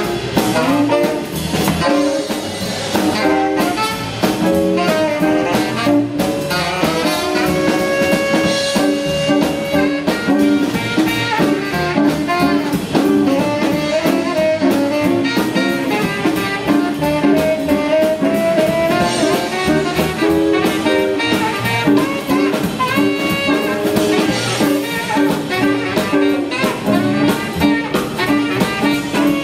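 Live swing band playing an instrumental break, a tenor saxophone playing the lead line over a drum kit.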